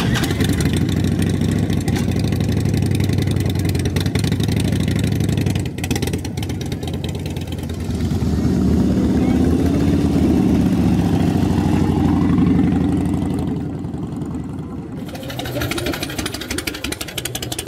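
Harley-Davidson V-twin motorcycle engines running: a steady engine note at first, then a louder stretch about halfway through where the pitch rises and falls as a bike revs and pulls away.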